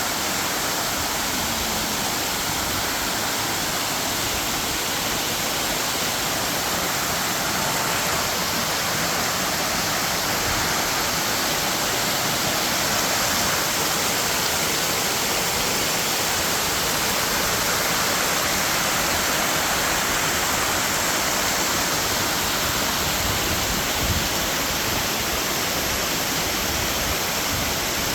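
Neda waterfall: water falling and rushing in a loud, steady roar of noise.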